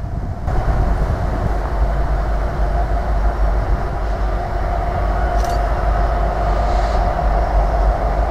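Freight train hauled by two Union Pacific diesel locomotives approaching: a steady diesel engine rumble with a held droning tone, mixed with the rolling noise of the train.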